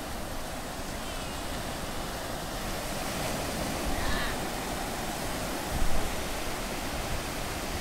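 Ocean surf: small waves breaking and washing up a shallow sandy beach in a steady rushing wash, with a short low thump about six seconds in.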